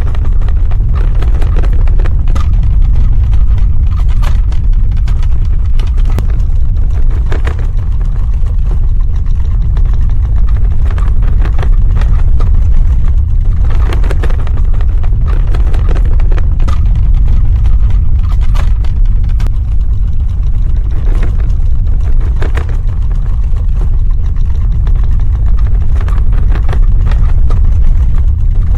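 Earthquake rumble sound effect: a loud, steady, deep rumble with scattered cracks and crackles through it.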